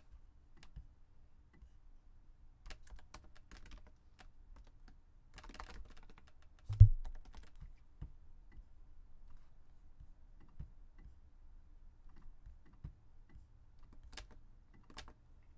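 Typing on a computer keyboard: short bursts of keystrokes with pauses between them, and one louder low thump about seven seconds in.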